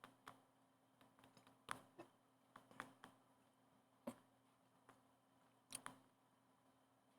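Near silence with scattered faint clicks and taps at irregular intervals, about ten of them.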